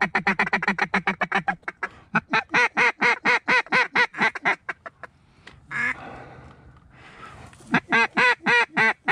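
Mallard duck call blown by a hunter, a hen-quack calling sequence aimed at passing mallards. It opens with a fast chatter of quacks, then a slower, even string of loud quacks, and after a short pause with rustling it starts another slower string near the end.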